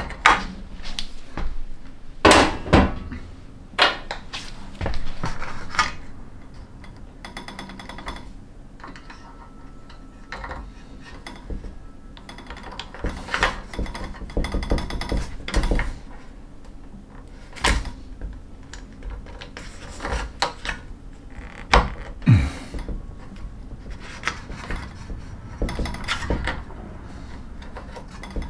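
A hand crimping tool clamping a connector onto a solar panel cable, clicking sharply a few times in the first seconds, followed by scattered clicks, taps and knocks as the cable and its fittings are handled against the panel's metal frame.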